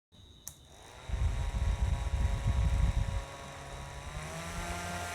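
Small DC motor of a homemade propeller table fan switched on with a click, its whine rising as it spins up and then holding steady. A low rumble of airflow on the microphone runs for about two seconds, and about four seconds in the whine rises a step in pitch as the fan speeds up.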